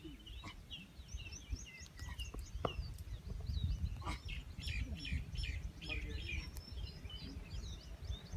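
Many small birds chirping at once, with short, quick overlapping calls all through, over a steady low rumble and a few faint clicks.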